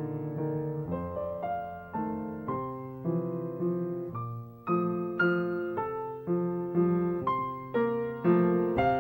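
Background piano music: notes and chords struck about twice a second, each dying away before the next.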